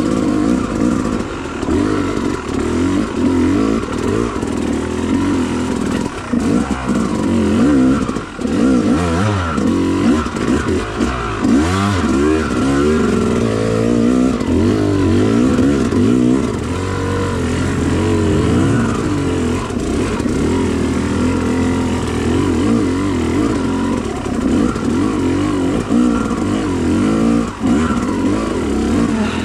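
Off-road motorcycle engine heard close up from the rider's seat, its pitch constantly rising and falling as the throttle is worked up a rocky, rutted trail.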